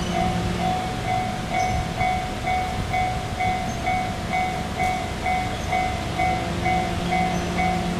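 Japanese level-crossing warning bell ringing steadily at about two strikes a second while an E351 series electric train runs past, its running noise under the bell.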